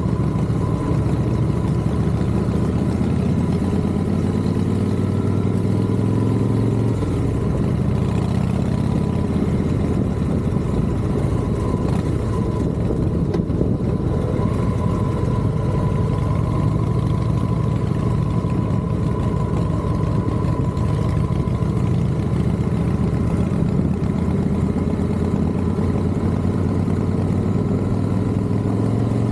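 Motorcycle engine running under way, its pitch climbing for a few seconds and dropping about seven seconds in as it shifts up, then running on steadily.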